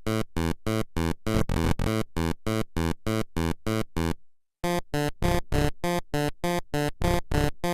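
Electronic background music: short staccato synthesizer notes, about four a second, with a brief break a little past four seconds in.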